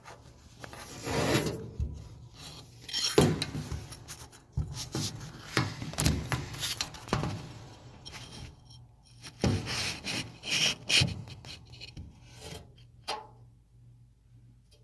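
Screwdriver and hands working the idler pulley arm's screw inside a dryer cabinet: irregular scraping and rubbing with sharp metallic clicks, easing off near the end.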